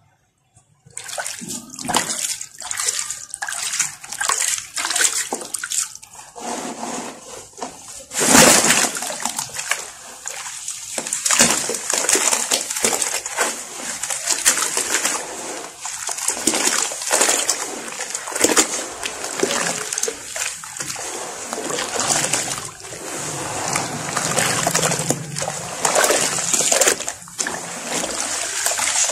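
Water splashing and sloshing in a plastic tub as hands break up and squeeze a soaked sand-cement block under water, with many irregular splashes. It starts after a brief quiet moment, and the loudest splash comes about 8 seconds in.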